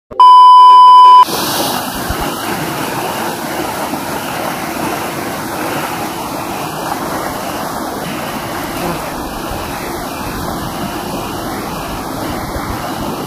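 A loud, steady test-tone beep lasting about a second, then the steady rush of a muddy flooded river racing past.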